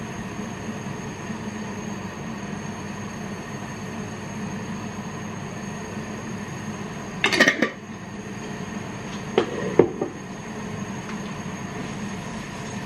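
Steady hum and hiss from kitchen cooking, with a short clatter of cookware about seven seconds in and a few metallic clinks a couple of seconds later.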